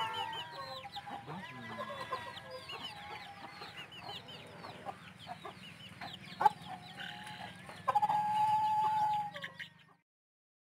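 Country hen chicks peeping constantly in many short, high chirps, with adult chickens clucking among them. There is a sharp knock about halfway through, and near the end a chicken gives one louder, long, steady call lasting about a second.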